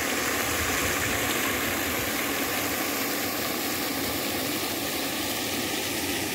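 A pond surface aerator running, its motor driving a steady, even rush of churning, spraying water.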